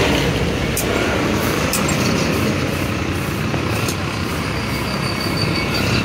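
Steady street traffic from motorcycles and other road vehicles going past, with a few sharp clicks in the first half and a faint high repeating tone near the end.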